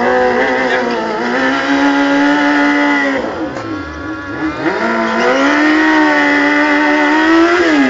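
Stunt motorcycle's engine held at high revs, dropping off about three seconds in, climbing back and holding again, then falling away near the end.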